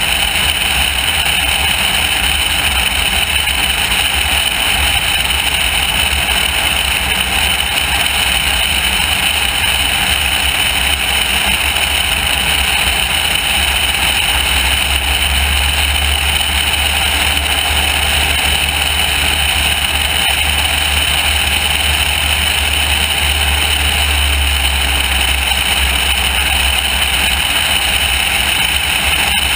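Loud, steady wind rushing over an outside-mounted camera on a light high-wing airplane in flight, over the steady drone of its engine.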